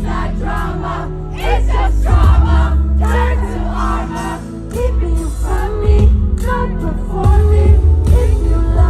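Pop song performed live: a woman's lead vocal over a band with a heavy, steady bass line.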